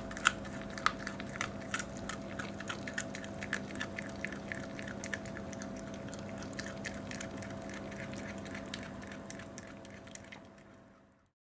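Toy Manchester Terrier chewing and crunching a raw meaty bone: a quick, uneven run of crunches and clicks over a steady low hum, thinning out and fading away near the end.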